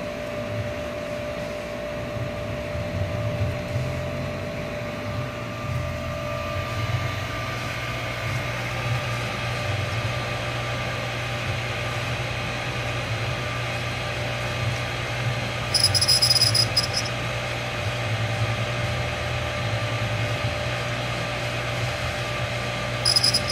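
A new 1.5 HP Water Ace sprinkler pump motor running steadily with a low hum and a thin high-pitched squeak, which sounds kind of like a bearing. Two brief, sharper high-pitched sounds come about two-thirds of the way through and near the end.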